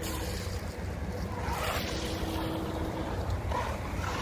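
Wind buffeting the microphone, with a faint steady whine and brief rushes of tyre noise from an electric RC monster truck driving across a concrete skatepark bowl.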